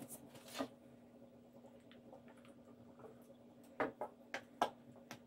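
Faint handling sounds on a wooden workbench. About half a second in there is a short scrape, then four quick knocks and clicks close together a little after the middle as a metal can of oil finish is picked up and handled. A low steady hum sits underneath.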